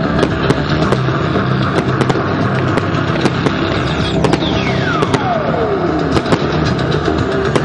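Fireworks display: a dense run of bangs and crackles from aerial shells and comets, with music playing underneath. A long whistle falls steadily in pitch from about four seconds in.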